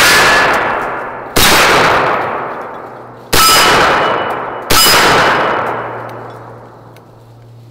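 Three rifle shots from an M1 carbine in .30 Carbine, one about a second and a half in and two more spaced about a second and a half to two seconds apart. Each shot has a long echoing decay, and steel targets ring faintly after the hits.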